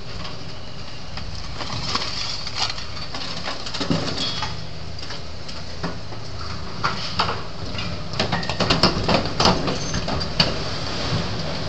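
Demolition excavator's engine running steadily as its attachment tears into a structure, with cracks, clanks and scrapes of breaking material that come thick and fast in the second half.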